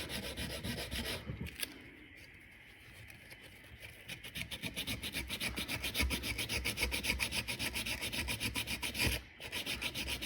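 Hand sanding of a metal gasket face with 220-grit sandpaper: quick, even back-and-forth rubbing strokes that scuff the surface so the gasket sealant will grip. The rubbing fades for a couple of seconds early on, picks up again, and stops briefly near the end.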